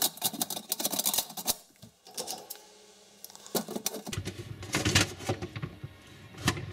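Dishwasher filter being seated in the sump and twisted to lock: a run of light plastic clicks and knocks, thickest in the first two seconds, with another cluster about five seconds in.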